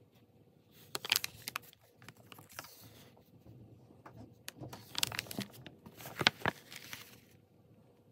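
Pages of a small sketchbook, heavy with dried paint, being turned and handled: paper rustling and crackling, one burst about a second in and a longer one from about four and a half to seven seconds in.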